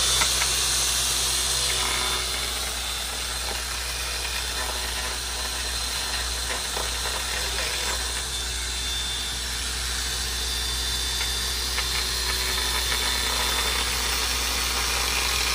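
Cordless angle grinder with a small grinding bit running steadily while it grinds along the cut edge of a large tile slab, with a constant high motor whine over the grinding noise.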